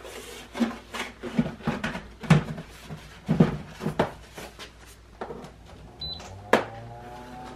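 Plastic lid of a Rite Farm Products Model 3600 egg incubator knocking and clattering as it is lowered onto its styrofoam base and handled. About six seconds in, a short electronic beep comes from its control panel, followed by a sharp click.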